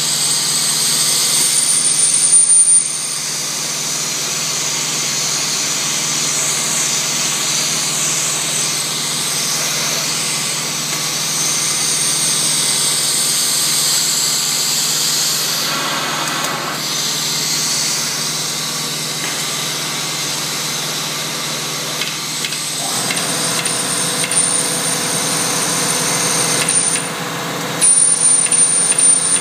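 Vacuum stone lifter's pump running steadily with a strong hiss while its pad holds a stone block. About two seconds in, and twice near the end, it briefly gets louder with a high whistle of rushing air.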